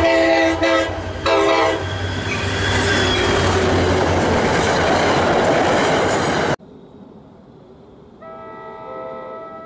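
Train horn blasts, then the loud rushing noise of a train passing close, which stops abruptly about six and a half seconds in. After a quieter stretch, a more distant train horn sounds a steady chord for about a second and a half near the end.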